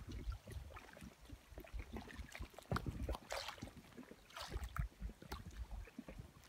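Small lake waves lapping and splashing irregularly against the shore, with wind rumbling on the microphone.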